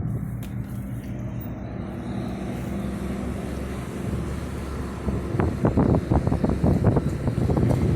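A steady low engine-like hum, then from about five seconds in, gusts of wind buffeting the microphone.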